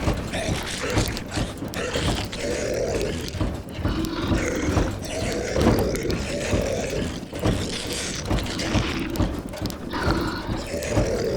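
Zombie moans and growls, drawn-out and overlapping one after another, over the steady hiss of rain on a roof.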